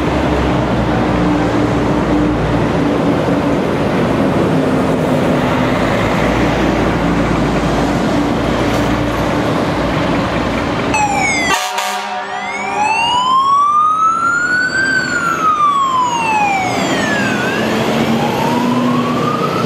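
Scania P320 fire engine's diesel engine running as the truck pulls out, then a quick burst of siren chirps. After that the electronic siren wails, rising and falling slowly about every two and a half seconds as the appliance responds to a call.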